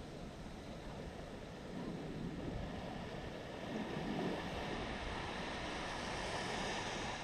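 Gentle surf washing onto a sandy shore, swelling louder about two seconds in and again around four seconds, with some wind rumble on the microphone.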